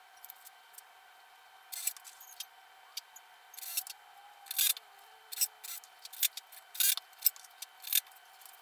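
About a dozen short, sharp scratches and clicks, a few of them longer strokes, from hand work with a tape measure and pencil while measuring and marking a wooden table leg.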